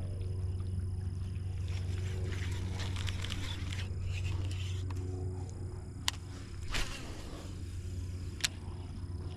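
A steady low hum, with scattered rustling and two sharp clicks in the second half.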